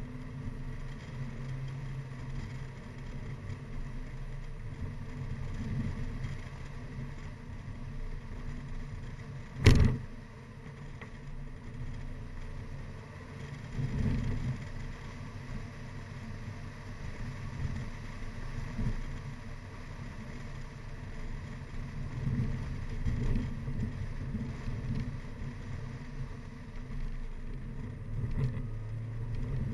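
Mini Cooper R55 Clubman driving briskly up a winding road, its four-cylinder engine note rising and falling with the throttle over steady road and wind noise. A sharp knock about ten seconds in.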